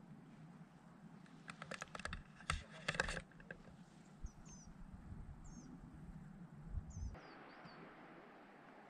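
Open-air trail ambience: a quick flurry of sharp clicks and crunches, then a few short high chirps from a small bird.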